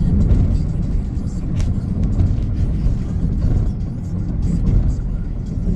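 Road and engine noise of a moving car heard from inside the cabin: a steady low rumble.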